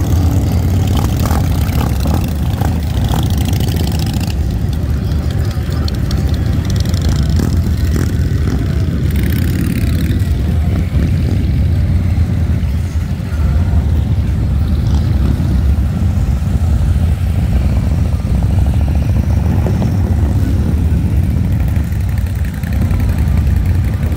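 Steady, loud low rumble of a vehicle on the move: engine and road noise with no clear changes.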